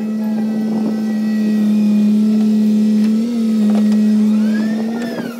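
L&T Komatsu crawler excavator's diesel engine running with a steady, loud drone, with a few clatters of soil dropping into a tipper truck's bed in the first second or so. Near the end a faint hydraulic whine rises and falls as the machine swings.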